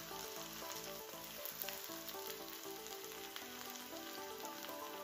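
Onions, tomatoes and garlic sizzling steadily in hot oil and ghee in a frying pan, with soft background music beneath.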